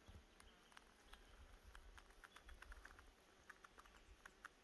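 Near silence: quiet bush ambience with faint, irregular small clicks and ticks over a low rumble.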